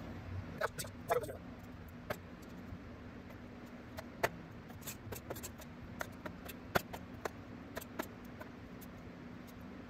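Chef's knife cutting tomato quarters on a wooden cutting board: a dozen or so sharp clicks and taps at irregular spacing as the blade meets the board while the seed parts are cut out. A faint steady hum lies underneath.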